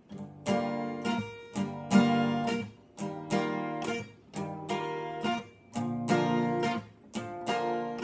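Acoustic guitar strummed in a steady rhythm, about two strokes a second, each chord ringing between strokes: the instrumental intro of a song.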